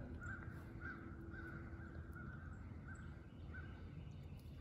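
A bird calling over and over in short, faint notes, about two a second at uneven spacing, over a low steady rumble.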